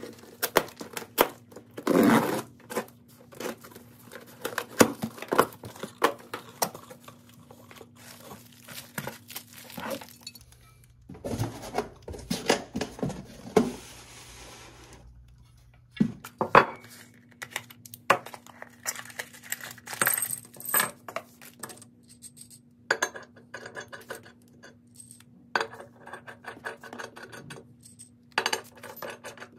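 Metal parts clinking and knocking together as they are handled: bolts and steel stand parts being set down and tapped, in many quick separate strikes. A faint steady hum sits underneath and drops out for a few seconds in the middle.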